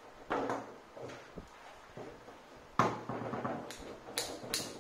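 Foosball game in play on a Fireball table: a series of sharp plastic knocks and clacks as the ball is struck by the figures and the rods are worked. The loudest knock comes near three seconds in, and a quick run of clicks follows near the end.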